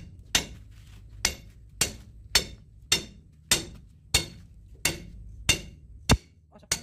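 A hammer striking the handle of a large steel hook spanner set on a hydraulic cylinder's gland nut, turning the gland. About eleven evenly paced metal blows, a little under two a second, each ringing briefly.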